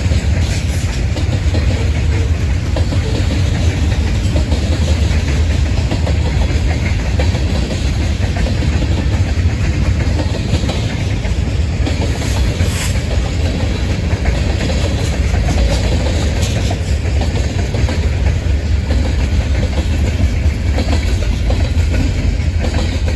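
Train cars rolling past at close range: a steady, loud rumble of wheels on rail with occasional clicks.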